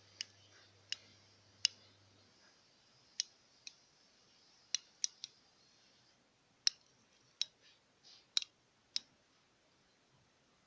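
Miniature keyring toy pistol's mechanism clicking: about a dozen sharp, light clicks at irregular intervals, some in quick pairs and threes.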